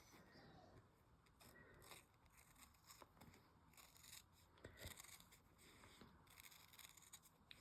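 A few faint snips of scissors cutting through embroidered vinyl along a stitched line.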